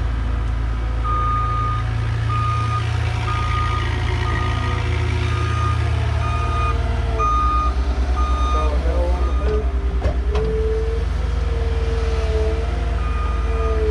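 Heavy-equipment backup alarm beeping about twice a second, pausing partway through and starting again near the end, over the steady low running of the diesel engines of a Cat mini excavator and a compact track loader at work.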